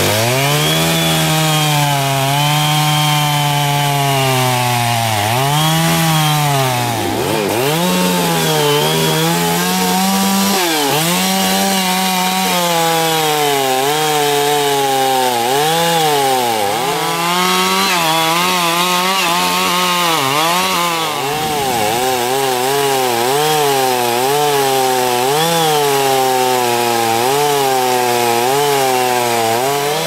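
Two-stroke chainsaw cutting into the base of a large tree trunk. Its engine pitch sags under the load and climbs back again and again, with a few deeper momentary drops as the throttle eases off.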